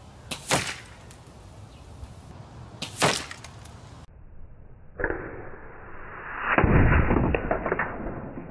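Two shots from a .22 Kral Armour bullpup PCP air rifle, about two and a half seconds apart, each a quick double crack. About four seconds in the sound turns muffled and dull, with a louder stretch of noise near the end.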